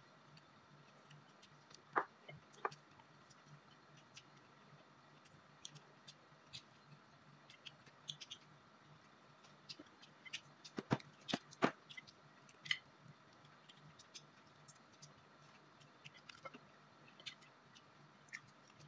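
Eating sounds of fried chicken and rice eaten by hand: chewing and scattered small crunches and mouth clicks, with a short cluster about two-thirds of the way in, over a faint steady hum.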